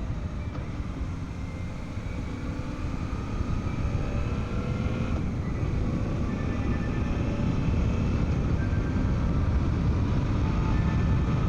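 Motorcycle riding along at road speed: the Suzuki V-Strom 800DE's parallel-twin engine running under a heavy rush of wind and road noise, its note drifting up and down with the throttle. It eases off about a second in and builds again from about halfway.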